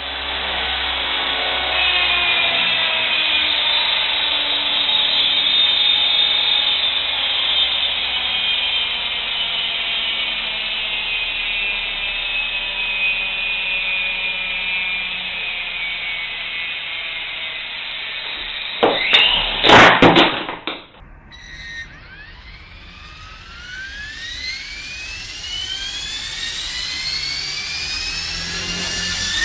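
Turbine engine whine made of several high tones gliding slowly downward as it spools down, broken by a short loud burst about two-thirds of the way in. After a brief drop, several whining tones rise steadily as the turbine spools up again.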